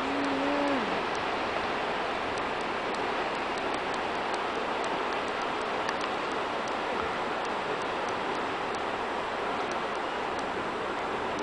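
Waves breaking on the shore in a steady rushing wash, with faint sharp clicks about twice a second throughout. A brief hummed voice sound comes at the very start.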